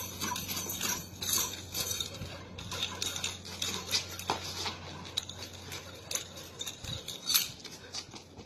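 Nunchucks being swung and spun, with irregular light clicks and rattles from the sticks and chain, mixed with footsteps on concrete, over a steady low hum.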